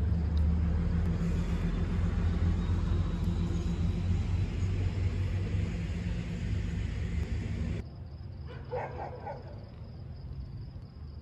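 A heavy vehicle's engine running close by: a loud, steady low rumble with a hum under it. It cuts off abruptly about eight seconds in, leaving a much quieter background.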